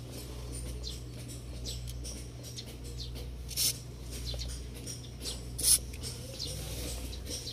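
Aerosol lubricant spray can giving several short hissing squirts through its straw nozzle into a sticky lock mechanism, the loudest about three quarters of the way in, over a steady low hum.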